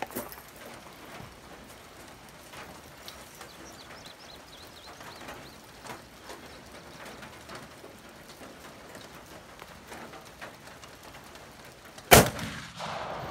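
One loud rifle shot about twelve seconds in from a Martini single-shot rifle firing a black-powder cartridge, with echo ringing after it. Before the shot there is only quiet outdoor ambience with a few faint chirps.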